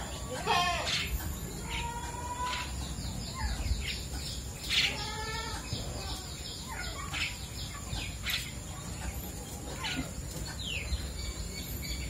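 Starling (jalak) nestlings calling: a run of short, high, falling chirps, with louder harsh squawks about half a second in and again near five seconds.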